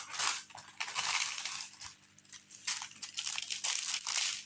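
Clear plastic protective film on a diamond painting canvas crinkling and rustling under the hands as it is smoothed and pressed back down, in several irregular bursts with short pauses.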